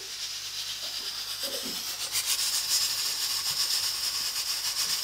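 Slices of bread frying in oil in a pan: a steady crackling sizzle that grows a little louder about two seconds in.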